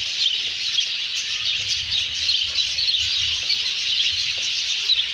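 A large flock of lovebirds chattering: a dense, unbroken mass of high chirps.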